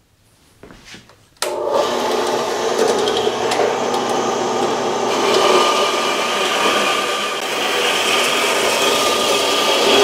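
Horizontal metal-cutting bandsaw starting suddenly about a second and a half in and running steadily while its blade cuts through a metal round bar. It stops right at the end.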